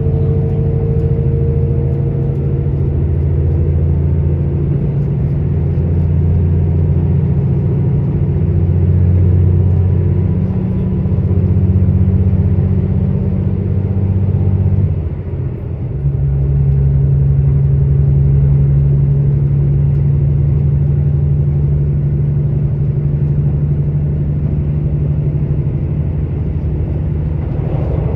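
A KiHa 85 railcar's Cummins diesel engine running under way, heard from inside the car over the rumble of the train. The engine note swells and ebbs for the first fifteen seconds or so, dips briefly, then settles into a steadier, lower hum.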